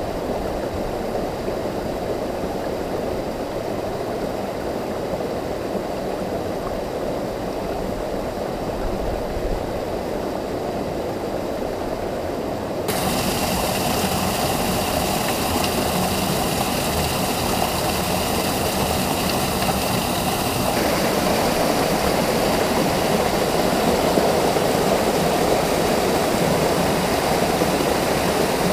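Small mountain stream pouring in little waterfalls over boulders into pools: a steady rush of falling water. It gets louder and brighter about thirteen seconds in and changes tone again about twenty seconds in.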